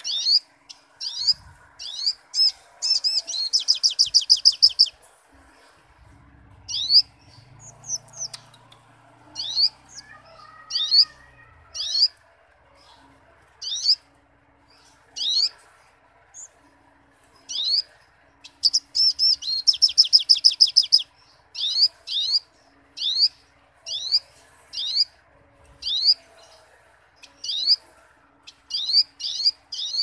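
Male olive-backed sunbird singing vigorously: a run of sharp, sweeping chirps about two a second, broken twice by a rapid trill lasting a couple of seconds.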